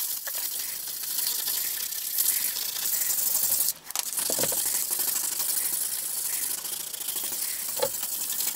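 600-grit sandpaper rubbed by hand back and forth over thin 25-gauge sheet steel, a steady fast scratching rub that breaks off briefly a little under four seconds in, sanding off burn marks.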